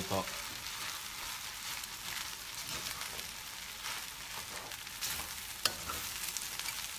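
Rice frying with a steady gentle sizzle in a stainless steel pan over lowered heat, while a slotted spoon stirs and presses it, scraping and tapping against the pan; one sharper clink of the spoon on the pan near the end.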